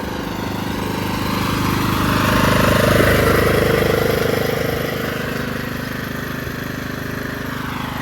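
Riding lawn mower engine running steadily, growing louder toward the middle and then easing off.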